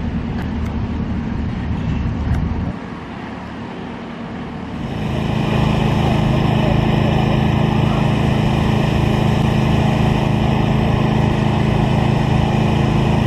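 Heavy truck engine running steadily at idle close by, starting about five seconds in and staying constant. Before it, a quieter steady vehicle rumble that drops away a few seconds in.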